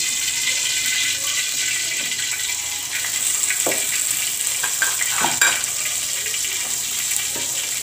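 Hot cooking oil sizzling in an aluminium kadai on the stove, a steady hiss, with a single sharp knock about five and a half seconds in.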